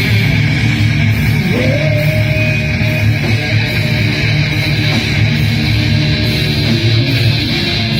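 Loud heavy rock jam on distorted electric guitar and bass. A lead note slides up and is held about a second and a half in.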